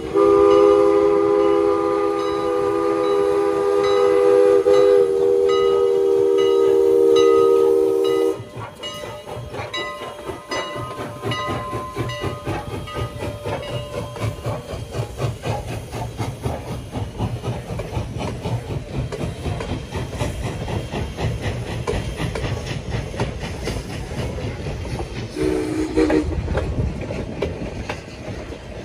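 Steam locomotive whistle of Canadian National #89 sounding one long blast, a chord of several tones held for about eight seconds, then the train running with a rapid rhythmic clatter of wheels on the rails and a low rumble, and a short whistle toot near the end.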